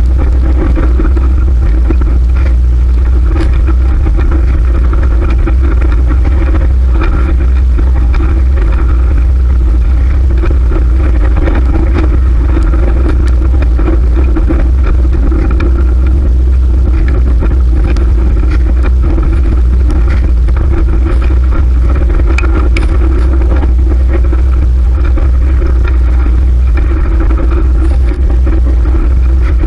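Steady heavy low rumble of wind on the microphone and road noise from a moving fixed-gear bicycle, with scattered small clicks and rattles.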